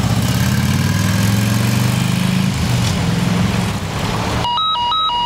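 Fire engine idling steadily. About four and a half seconds in, a two-tone electronic alarm starts, flipping between a low and a high pitch about every fifth of a second.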